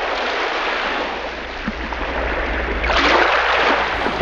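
Water rushing along a Columbia 8.7 sailboat's hull with wind noise on the microphone, swelling louder about three seconds in as a wave washes past.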